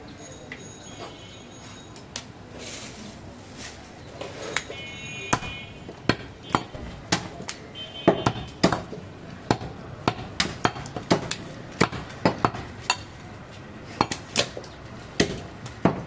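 Butcher's knife chopping goat meat on a wooden stump block: a string of sharp, irregular knocks, more frequent in the second half, with a few brief metallic clinks.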